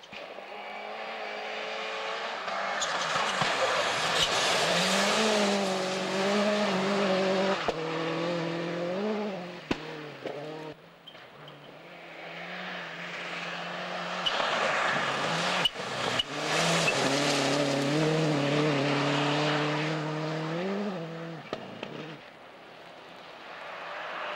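Two turbocharged World Rally Cars pass one after the other on a snowy stage, each engine revving hard with its pitch rising and dropping through gear changes, over a rushing noise of tyres on snow. A couple of sharp cracks come as the second car goes by, and a third car's engine builds near the end.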